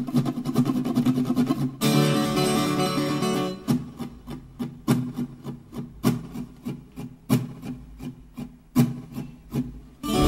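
Background music on a plucked string instrument, guitar-like. A fuller strummed passage comes about two seconds in, then single plucked notes with pauses between them.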